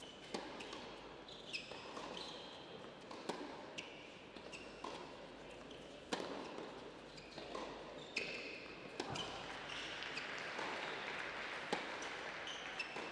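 Tennis rally on an indoor hard court: sharp racket strikes and ball bounces at irregular intervals, echoing in the hall, with brief high squeaks of tennis shoes on the court.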